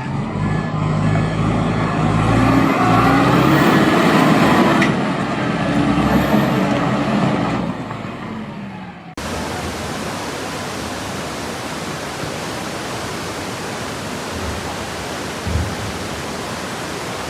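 Heavily loaded truck's engine labouring under strain, its pitch rising and then falling back. About nine seconds in it cuts off abruptly to a steady rushing noise.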